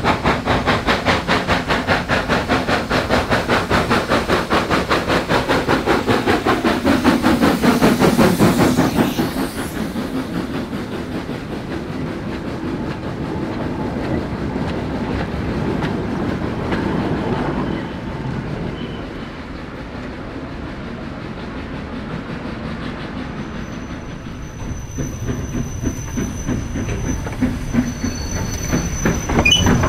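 A train running past: a loud, rapidly beating locomotive exhaust for the first nine seconds with a falling pitch as it goes by, then the carriages rolling past with wheels clicking over the rail joints. Pulsing builds again near the end.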